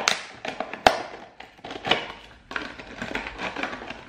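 Hard clear plastic packaging being handled and opened: two sharp plastic clicks, one at the start and one about a second in, followed by irregular crinkling and rattling of the plastic.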